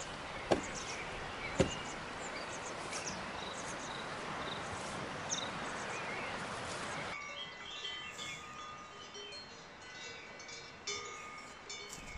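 Steady rushing of a fast-flowing river, with a couple of sharp clicks and brief bird chirps over it. About seven seconds in, the rushing stops abruptly and quieter songbird song takes over.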